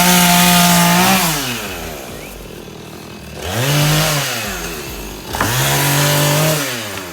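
Husqvarna chainsaw engine revving. It is held at high throttle, then drops back about a second in. It gives a short rev-up near the middle, then a longer held rev that falls away near the end.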